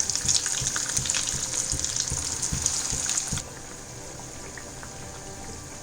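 Semolina snack pieces deep-frying in hot oil, a steady sizzle with scattered crackles and a few soft knocks. About three and a half seconds in, the sizzle suddenly drops to a quieter level.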